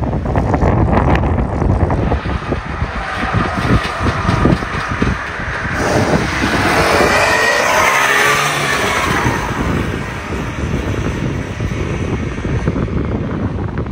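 Car engines running close by, with one car driving past about halfway through, its engine note sweeping up and down as it goes by.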